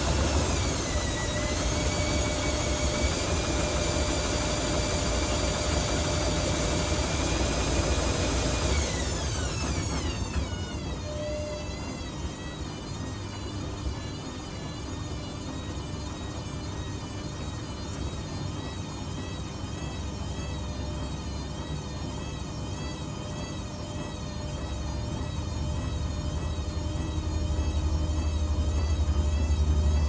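Zanussi ZWF16070W1 front-loading washing machine spinning its drum with water and suds inside. The motor whines at speed, winds down about nine seconds in, then runs slower with a wavering whine, and near the end picks up again with a rising low rumble.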